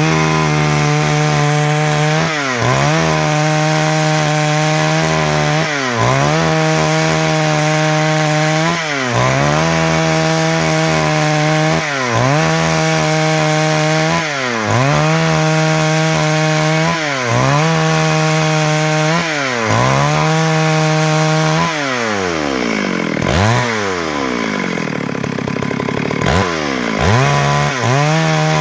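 Stihl MS 382 two-stroke chainsaw running at high revs while cutting wood lengthwise into boards. Its revs dip and climb back about every two and a half to three seconds, and a little past the middle it slows down for several seconds before revving back up.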